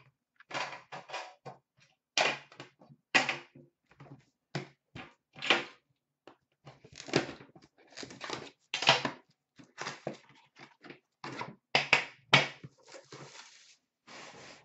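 Handling noise from an Upper Deck The Cup hockey card box being handled and set down on a glass counter: a quick run of irregular short scrapes, rustles and knocks.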